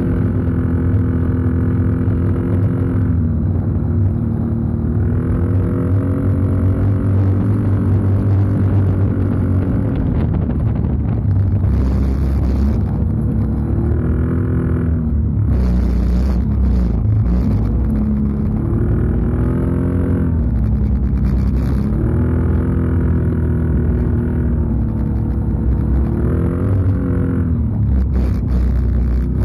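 Can-Am Outlander 650 XMR ATV's V-twin engine running through an aftermarket MBRP muffler while riding, with the throttle opening and closing so the exhaust note rises and falls in pitch several times. A few brief bursts of hiss come over it.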